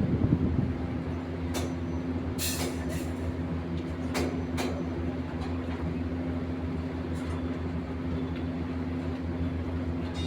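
Steady low machine drone with a constant pitch, with several short sharp clinks or knocks scattered through it.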